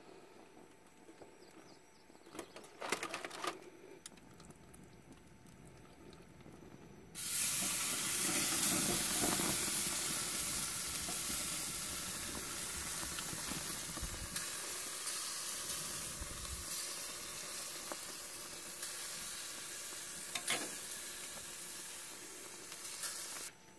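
Pork roast sizzling on hot grill grates: the sizzle starts suddenly about seven seconds in as the meat goes onto the grate, fades slowly, and cuts off abruptly near the end. A short handling noise comes about three seconds in.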